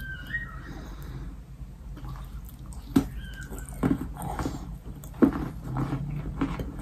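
Close-up chewing and biting of a yellow sandy clay cookie coated in soft clay paste: wet, sticky mouth sounds with two sharp clicks about three and five seconds in.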